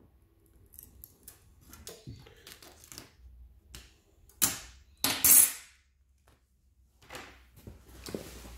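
Hot-knife cutter (HSG-1 with R-50 blade) drawn through synthetic webbing along a metal straight edge, giving light scraping and ticking. About four and a half seconds in comes a short loud rasp, then a longer, louder one as the webbing and metal ruler are pulled away and handled, with more handling noise near the end.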